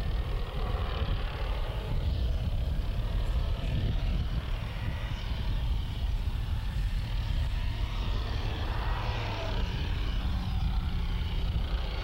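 M109 self-propelled howitzer driving on its tracks, its diesel engine giving a steady low rumble with no gunfire.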